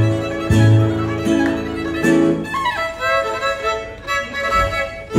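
Mariachi violin and acoustic guitar playing together. The guitar strums chords under the violin for about the first half. It then drops away, and the violin carries a softer solo line with sliding notes.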